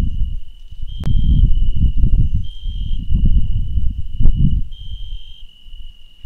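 Steady high insect trilling that keeps up without a break, louder in stretches, over irregular, gusty low rumbling. Two sharp clicks, about a second in and just past four seconds.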